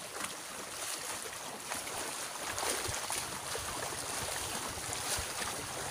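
Feet sloshing and splashing as several people wade through shallow water, an uneven run of splashy steps.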